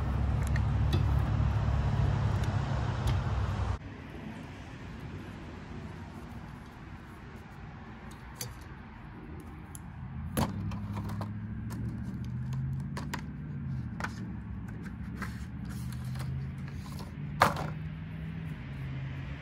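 Sharp plastic-and-metal clicks and clacks of pickup-truck windshield wiper blades being unclipped from and handled on their raised wiper arms, scattered a few seconds apart, the loudest near the end. Under them runs a low steady hum, loud at first, which drops suddenly about four seconds in and comes back softer later.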